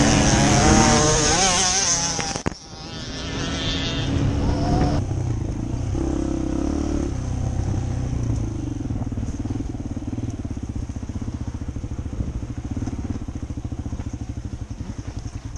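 Dirt bike engine heard from the rider's own machine, its pitch rising and falling as the throttle is worked. It breaks off abruptly about two and a half seconds in, then runs at lower, even revs with a fast, steady firing pulse.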